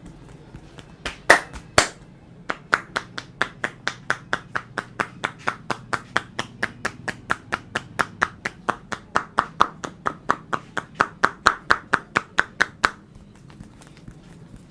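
A barber's hands doing a percussive head massage: two sharp claps, then a fast, even run of hollow hand slaps, about five a second, lasting some ten seconds before stopping abruptly.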